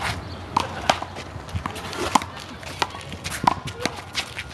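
A handball rally: the small rubber handball smacked by bare or gloved hands and slapping off the wall and court in sharp, irregular cracks, with short squeaks of sneakers on the court between hits.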